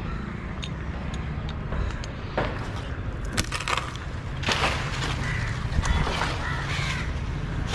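Chainsaw's small engine idling steadily. Several sharp knocks and crackles fall over it, the loudest a little past the middle.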